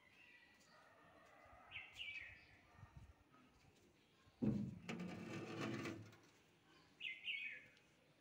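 A small bird chirps twice, each time a quick run of short falling notes. Between the chirps, about halfway through, comes a louder pitched sound lasting about a second and a half.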